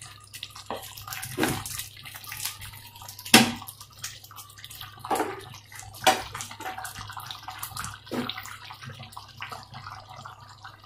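A wooden spoon stirring thick, soupy vegetable khichuri in an aluminium pot to mix in ghee: wet sloshing and squelching, with the spoon knocking against the side of the pot about six times, loudest about three and a half and six seconds in.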